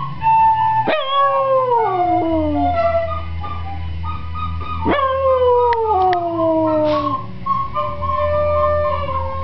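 A small dog howling along to a recorder. There are two long howls, about one and five seconds in, each starting sharply and sliding down in pitch over about two seconds, while the recorder plays held notes.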